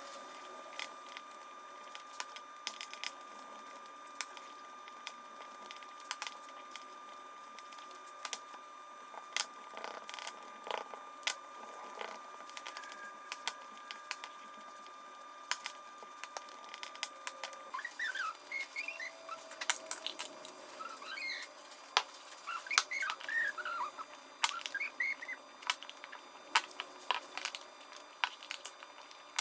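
Scattered light clicks and taps, irregular and sparse, as of small wooden parts and hand tools being handled. A faint steady high whine runs underneath until about two-thirds of the way through. After that, short chirps come in among the taps.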